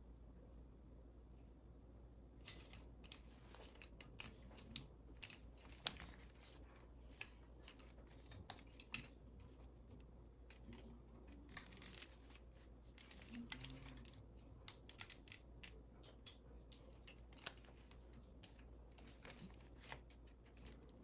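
Faint, scattered rustles and light clicks as hair is handled and wound around a clamp curling iron, over a low steady room hum; one sharper click stands out about six seconds in.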